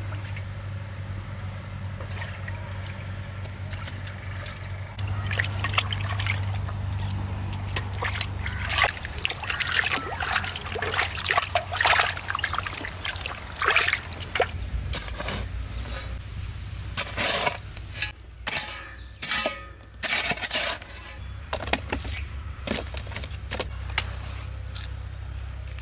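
Water splashing and sloshing in a steel pot as hands rub and turn raw chicken pieces to wash them, in irregular splashes through the middle of the stretch.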